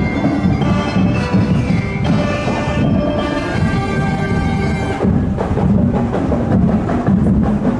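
Festival street band playing: drums beating a steady, busy rhythm under brass carrying a melody.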